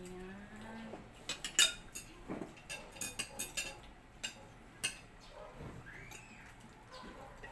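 Forks and chopsticks clinking against plates and a glass bowl as food is served and eaten: a scatter of short, sharp clicks, thickest between about one and five seconds in.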